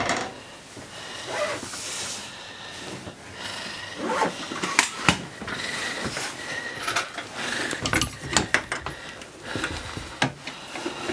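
Wooden wardrobe doors being opened and handled: an irregular series of clicks and knocks, the sharpest about five seconds in and a cluster around eight seconds in.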